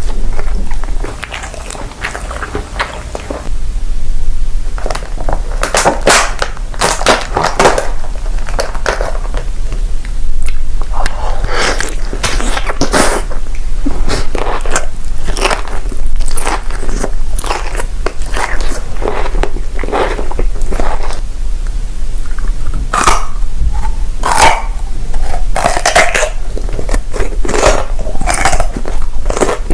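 Close-miked mukbang eating sounds: a person biting into and chewing food, with many short, irregular crunches and crackles.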